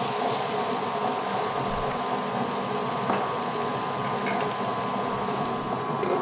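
Butterfly Rhino Plus table-top wet grinder running steadily, its cylindrical stones rolling in the turning steel drum as they grind soaked rice into batter; the running is smooth now that the rice is in. One short click about three seconds in.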